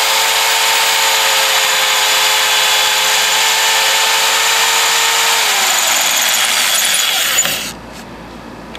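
Corded electric drill running steadily under load as it bores into the steel frame of a walk-behind mower. Its pitch sags about two-thirds of the way in, and it stops near the end.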